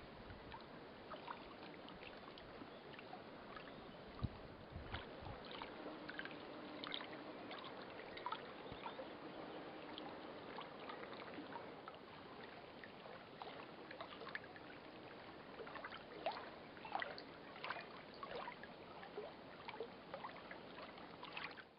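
Faint lake-water ambience: small waves lapping with a steady hiss and scattered little splashes and ticks, which grow busier in the second half. There is one soft low bump about four seconds in.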